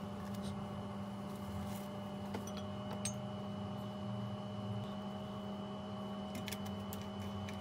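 Steady low hum with a faint high whine, with a few light clicks and taps of a small oil bottle and a seasoning shaker being handled over a glass bowl, most of them near the end.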